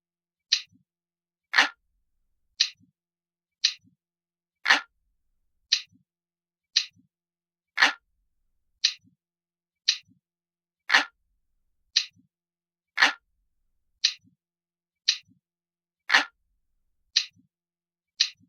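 Ticking clock sound, steady clicks about once a second, some ticks heavier and lower-pitched than the others.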